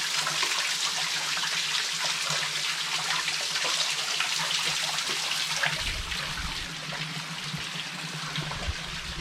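A small stream of water trickling and splashing steadily as it runs into a sinkhole. A low rumble joins it about six seconds in.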